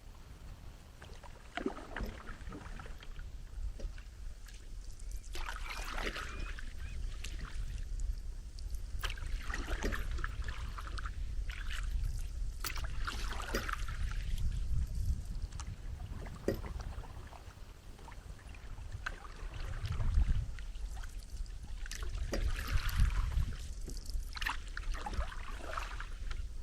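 Water splashing in irregular bursts every few seconds over a low steady rumble, as from a small boat moving on a lake.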